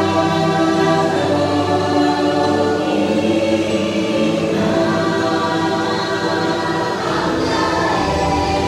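Ride soundtrack of a choir singing long held notes over music, the pitch shifting every second or two.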